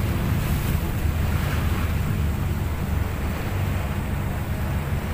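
Speedboat's engine running steadily at speed, a low even drone, with water rushing past the hull and wind buffeting the microphone.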